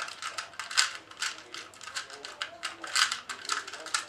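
2x2 plastic puzzle cube being turned rapidly by hand in a speedsolve, its layers clicking and clacking in a quick, uneven run of about five turns a second.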